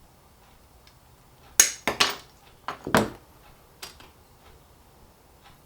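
A handful of sharp snaps and clinks, about six over two and a half seconds starting about a second and a half in, as the tail end of a clock hand is cut off.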